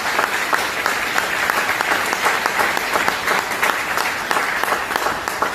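Audience applauding: many hands clapping together, steady throughout.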